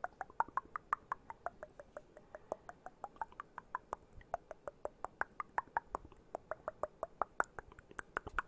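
Rapid mouth clicking close to the microphone: about seven wet tongue clicks a second, each a short pitched pop whose pitch wanders up and down as the mouth shape changes.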